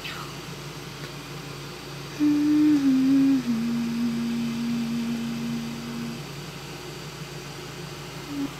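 A person humming a slow lullaby to lull a child to sleep: starting about two seconds in, a few long notes stepping down in pitch, the last held for about three seconds, with a short note again near the end, over a steady low background hum.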